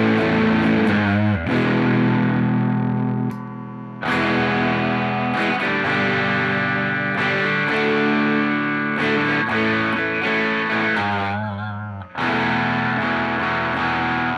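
Squier Cyclone electric guitar played through distortion. Sustained chords are struck and left to ring, with a new chord every few seconds.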